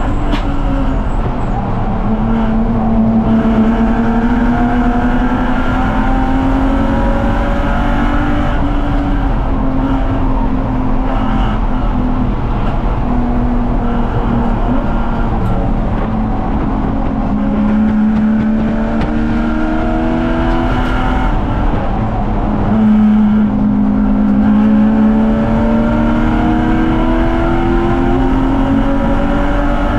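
A BMW 330ci's 3.0-litre inline-six racing engine running hard at high revs. Its note climbs in pitch and drops back several times as the car is driven through shifts and corners.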